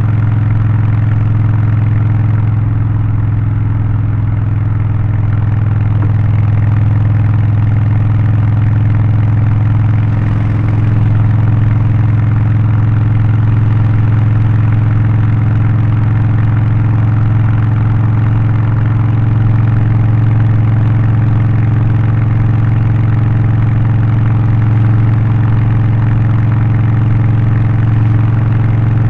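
Harley-Davidson Low Rider ST's Milwaukee-Eight 117 V-twin, with a Stage 1 remap, aftermarket exhaust and air filter, running at steady revs with a deep, even exhaust note. It gets slightly louder about eleven seconds in, with no change in pitch.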